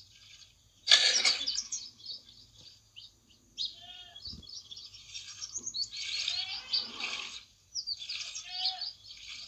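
Small birds chirping and calling in quick, irregular bursts, loudest about a second in.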